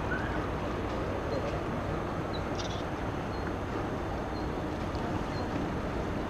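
Steady outdoor waterfront background noise, a low rumble and hiss with faint indistinct voices, and a faint short high chirp repeating about once a second.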